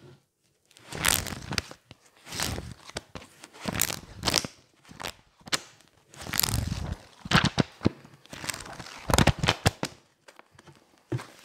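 Pages of a thick paperback textbook riffled and flipped quickly close to the microphone, in repeated bursts of paper flutter about once a second, some ending in sharp flaps of paper. Quieter for about a second near the end.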